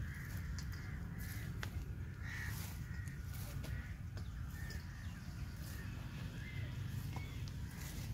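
Crows cawing a few times over a steady low rumble, with scattered faint clicks.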